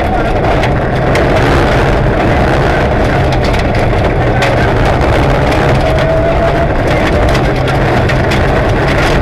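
Rally car engine running hard at high revs, heard from inside the cabin, with loose gravel clattering against the underside in many quick ticks.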